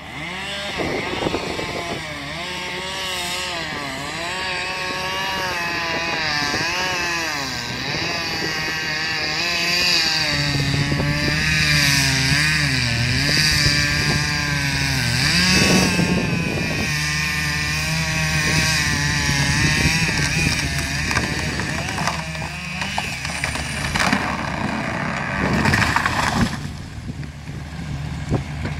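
John Deere Timberjack 1110D forwarder's diesel engine running under hydraulic load as its crane works, the engine pitch rising and falling with the load, with a few loud clunks about halfway through and near the end.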